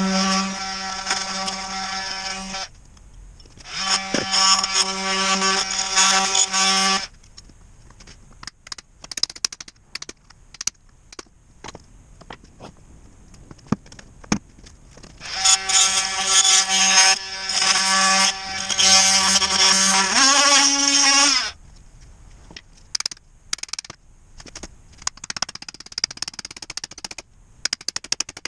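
A power saw cutting into a foam-filled tire on a snowcat road wheel. It runs in three bursts of a few seconds each with a steady buzz, and its pitch rises near the end of the last burst. Between the bursts come scattered knocks and scraping clicks.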